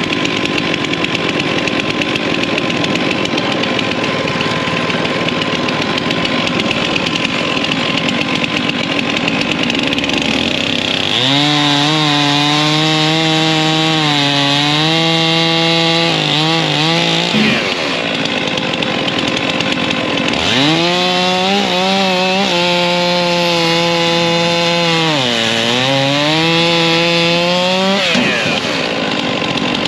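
Stihl chainsaw at full throttle bucking hedge (Osage orange) logs into rounds, twice: the first cut runs from about eleven seconds in, the second from about twenty seconds in. Each time the engine pitch sags as the chain bites, dipping hard midway through the second cut, and the saw drops back when the round comes off. Steady machinery noise runs underneath.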